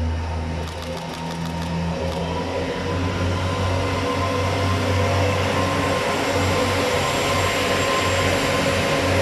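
Shu*Kura diesel railcars (KiHa 48-based) pulling out and rolling past, their diesel engines running under load with a steady drone. The sound grows louder about three seconds in as the cars go by.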